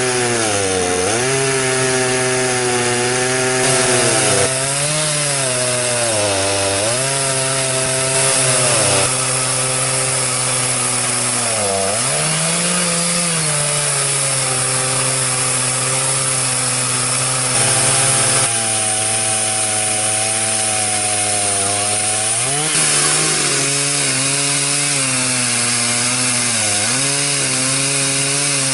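Stihl MS 360 two-stroke chainsaw (about 62 cc, 20-inch bar) running under load while ripping a log lengthwise in an Alaskan MkIII chainsaw mill. The engine pitch sags and recovers several times as the chain loads up in the wide cut, a saw the owner finds too small for milling.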